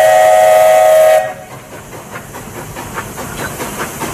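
Steam whistle of the Walt Disney World Railroad locomotive 'Walter E. Disney' blowing a loud chord of several tones, cutting off sharply about a second in. Then a quieter rhythmic beat from the steam train rolling past.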